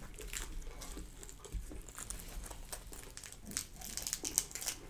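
Fried catfish fillet being pulled apart by hand, its crisp fried coating crackling in many small, sharp crackles that come thickest near the end.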